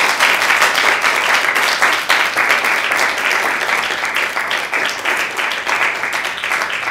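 A small audience applauding: dense hand-clapping that eases slightly toward the end.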